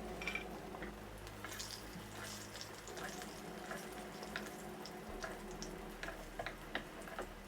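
Eggplant slices shallow-frying in hot mustard oil, with a soft sizzle and scattered crackling pops. A steady low hum runs underneath.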